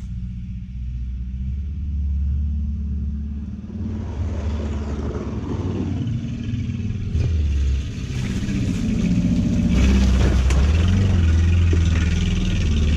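2003 Ford Focus engine with its catalytic converter gutted, revving up and down as the car drives across a dirt lot, growing louder as it comes closer. From about eight seconds in, tyres scrabble on loose dirt over the engine.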